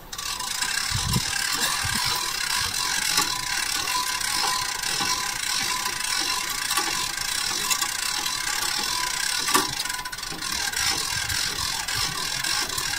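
Winch whirring and clicking steadily as it hauls on a taut tow strap, with a faint steady whine under the gear noise; it starts abruptly.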